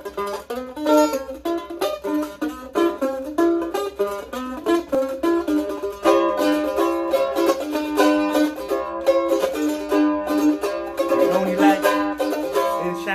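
Mandolin played solo with a pick: a lively melody of quick single notes, several a second, with no other instrument.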